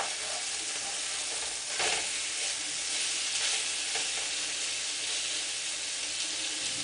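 Ribeye steaks sizzling as they sear in a frying pan over high heat, with a few scrapes and clicks of metal tongs against the pan as the steaks are turned over.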